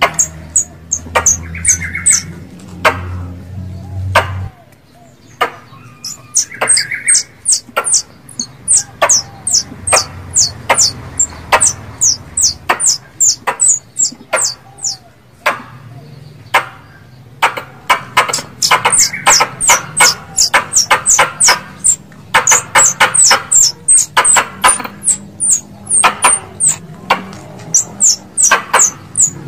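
Tree squirrel (bajing) calls of the kind used as a hunting lure: rapid runs of sharp, high chips, several a second, each falling quickly in pitch. There are short pauses between runs.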